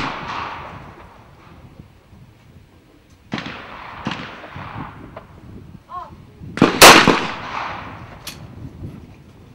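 Over-and-under trap shotgun shots, each report trailing off in echo. Two come about a second apart a little over 3 s in, a louder one near 7 s, then a sharp metallic click as the gun is broken open.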